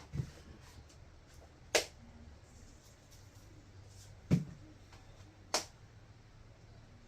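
Four sharp clicks and knocks, one to two and a half seconds apart, from seasoning containers and utensils being handled on a kitchen counter.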